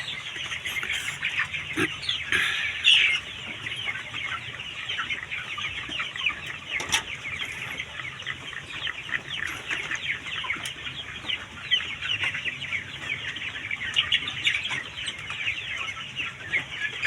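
A flock of chickens in a poultry house calling continuously: many short, high, overlapping calls, with a few louder single calls standing out.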